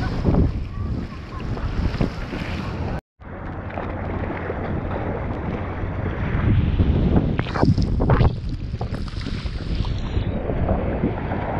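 Sea water sloshing and splashing around a camera held at the surface, with surf rumbling and wind buffeting the microphone. The sound drops out briefly about three seconds in. A couple of louder splashes come about seven to eight seconds in.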